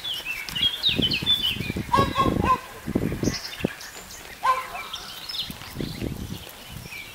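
Greylag goose goslings peeping: many thin, high, falling peeps. A few lower short calls come about two seconds in and again just past four seconds, over repeated low rustling and bumping noises.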